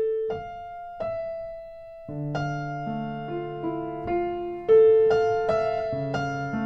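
Slow background piano music: a few single held notes, then fuller chords with a bass line joining about two seconds in.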